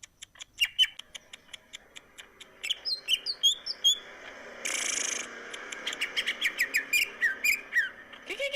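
Green leafbird (cucak ijo) singing in full, rapid song: a fast run of short chirps and whistles, with falling whistled slurs in the second half and a harsh, rasping burst about five seconds in.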